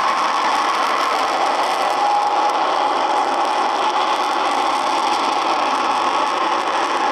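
General Electric J79 turbojet of an F-104D Starfighter running on the ground with its characteristic howl: a steady high tone over the jet noise.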